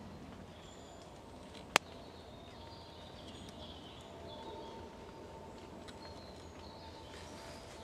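Faint birdsong chirping over a low steady hiss, with one sharp click a little under two seconds in.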